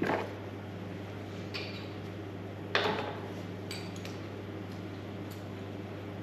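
Metal parts and tools clinking and knocking as they are handled, a handful of separate clinks with the loudest about three seconds in, over a steady low machine hum.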